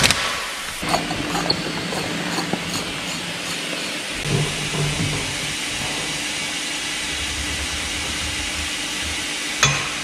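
Two-post vehicle lift lowering a van: a steady hiss as the hydraulic fluid is let back, with a few light metallic clicks in the first seconds and a low hum coming and going. A single sharp knock near the end.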